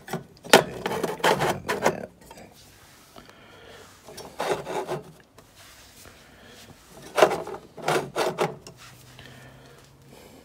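Rubbing and scraping in three short bouts as stepper motor drives are slid and shifted about on the floor of a steel electronics enclosure.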